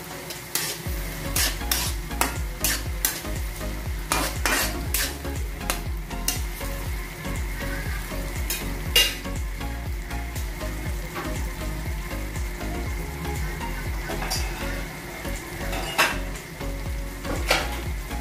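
Chopped tomatoes, onion and garlic sizzling in oil in a steel wok, with a spatula scraping and knocking against the pan as it stirs. The stirring is busiest in the first few seconds, with a few more knocks later. A steady low hum runs underneath.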